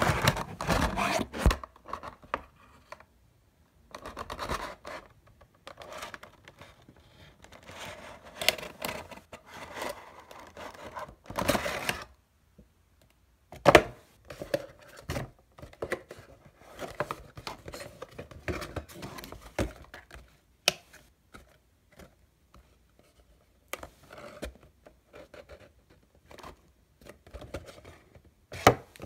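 Funko Pop packaging being handled: a clear plastic insert and cardboard box crinkling, scraping and rubbing in irregular bursts, with a few sharp clicks.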